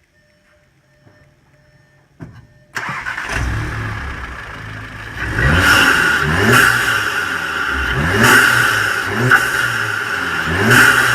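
Volkswagen Golf GTI MK7's turbocharged 2.0-litre four-cylinder, fitted with a CTS turbo cold air intake, starting up about three seconds in and settling to idle, then revved in about five quick blips, each rising and falling in pitch, with loud intake noise.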